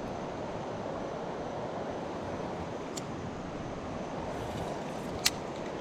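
River water running steadily, heard as an even rushing hiss, with a faint click about three seconds in and a sharper click near the end.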